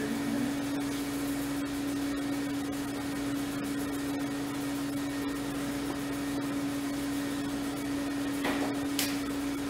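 A steady hum with one constant tone and a hiss, and near the end two short clicks as a hydraulic hose quick-connect coupler is worked onto its fitting.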